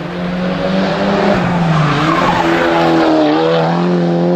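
Rally car engine held at high revs, its note dipping briefly about two seconds in and then pulling back up, with tyre noise as the car slides through a corner.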